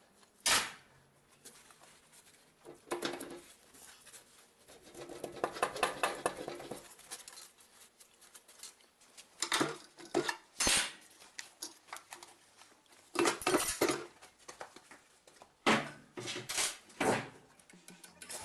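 Metal engine parts clinking, knocking and scraping as they are handled and set down during an engine teardown: a string of separate sharp metallic knocks, with a longer rattling, scraping spell partway through.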